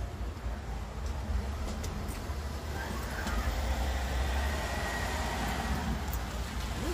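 A car driving past on the road, its tyre and engine noise swelling about halfway through over a steady low rumble, with a few faint clicks from a bag being handled.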